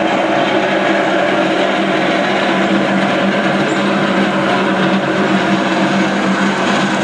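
Lännen backhoe loader's engine running steadily while its toothed bucket scrapes and breaks up a thick ice sheet on a grass pitch, throwing up ice chips.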